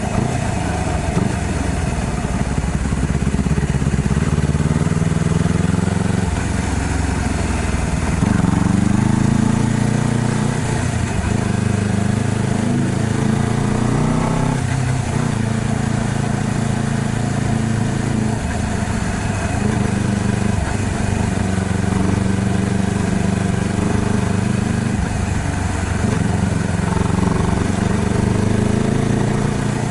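Honda CBR250RR motorcycle engine running under way, its pitch rising and falling with the throttle. About eleven seconds in the revs climb steadily for a few seconds, then drop sharply, as in an upshift.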